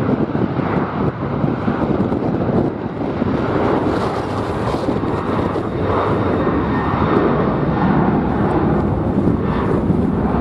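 Jet airliner engines heard through heavy wind buffeting on the microphone, a steady loud rush with a faint high engine whine in the middle.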